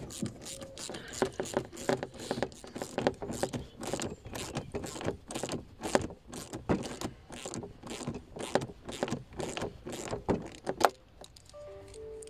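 Rapid, irregular metallic clicking and clattering of hand tools and hose-clip hardware being worked while fitting silicone boost hoses, about three or four clicks a second, dying away near the end.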